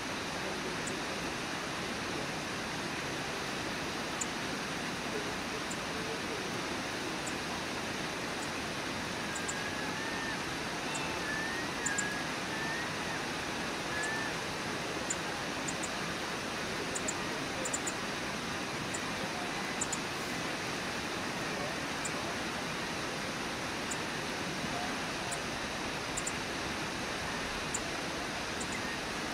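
Steady rush of a waterfall: white water pouring over a low river falls, an even unbroken roar at a constant level.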